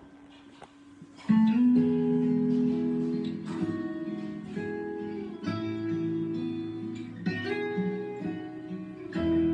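Acoustic guitar playing a strummed chord intro, faint at first and then coming in strongly about a second in, the chords changing about once a second.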